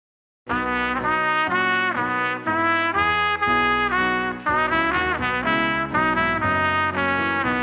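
Instrumental music with a trumpet-like brass lead playing a melody over lower brass and bass notes, starting abruptly about half a second in after silence.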